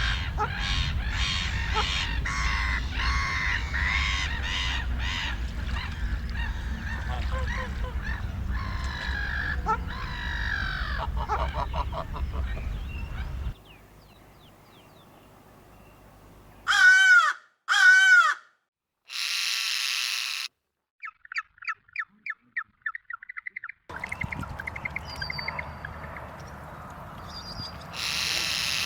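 Birds calling in several spliced recordings. First comes a dense overlapping chorus of calls over a low rumble. After a sudden cut come two loud arching calls, a brief hiss, and a rapid run of short chattering notes, then more calls.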